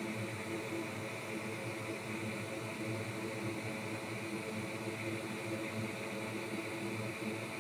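Steady blower-like hiss with a faint low hum, even throughout, from air-moving equipment running continuously.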